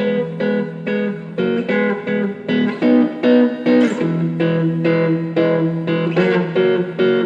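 Electric guitar playing a repeating rhythmic chord riff in steady, evenly spaced short strokes.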